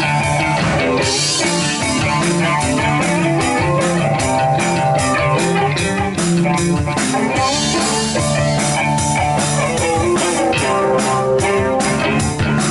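Rock band playing live: guitars over a drum kit keeping a steady beat.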